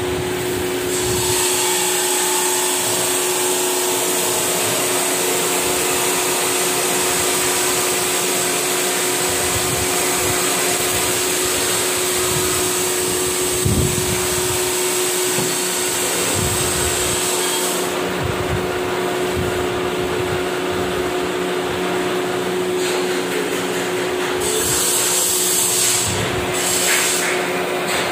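Metal lathe running steadily with a constant hum while a thread is cut into a large steel shaft, with a high whine that drops out about two-thirds of the way through.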